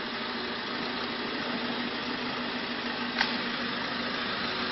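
Van engine idling steadily as the van creeps backwards, with one short sharp crack about three seconds in as the rear tyre rolls onto the Samsung Galaxy S2 phone and breaks it.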